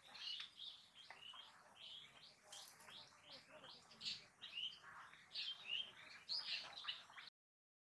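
Small birds chirping, many short high calls overlapping several times a second; the sound cuts off abruptly near the end.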